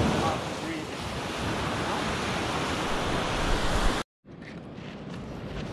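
Ocean surf breaking on the shore, with wind buffeting the microphone. About four seconds in the sound cuts out for a moment and a quieter, steadier noise follows.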